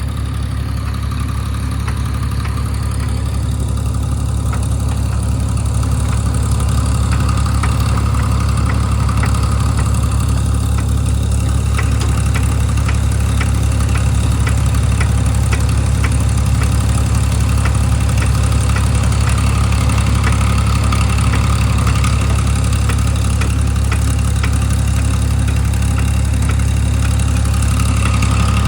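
Diesel engine of a JCB excavator loader running steadily with a deep drone, faint light ticks over it.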